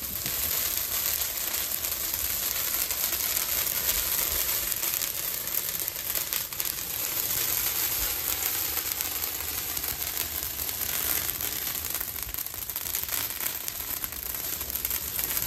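Green fir branches burning in open flames over a washing-machine-drum fire pit, crackling steadily.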